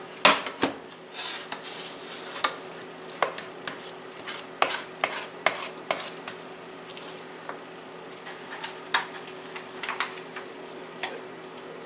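A metal serving spoon scraping and clinking in a bowl of mashed sweet potato and tapping the filling into thin aluminium foil pie pans. It makes irregular clicks and scrapes, sometimes several in quick succession.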